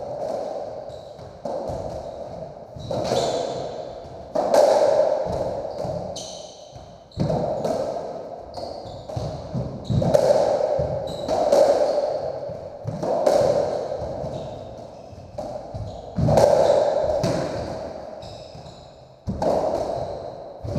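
Racketball rally in an enclosed squash court: racquets striking the ball and the ball hitting the walls and floor, each hit a sharp knock with a long echo, roughly one every one to two seconds, with a few short high squeaks between.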